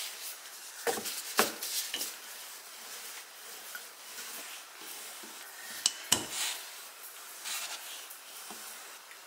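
Wooden rolling pin rolling out puff pastry dough on a countertop, a steady rubbing, with a few sharp wooden knocks, the loudest about a second and a half in and again at six seconds.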